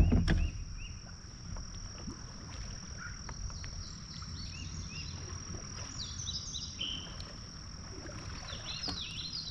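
Songbirds chirping in quick runs of short falling notes over a steady high-pitched hum, with a single loud knock at the very start.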